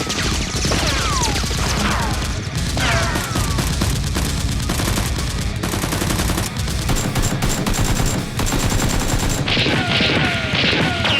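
Rapid automatic gunfire sound effects dubbed over a Nerf blaster fight, in sustained volleys with several falling whistling sweeps.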